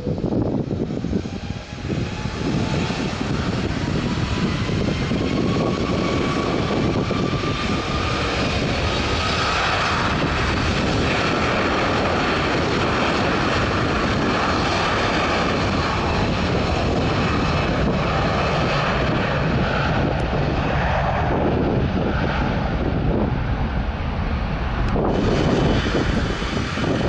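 Airbus A330's Rolls-Royce Trent 700 turbofans spooling up to takeoff power: a whine rising steadily in pitch over the first eight seconds or so, then a steady loud jet roar as the aircraft rolls. Near the end the sound changes abruptly to another A330's engines with a steady high whine.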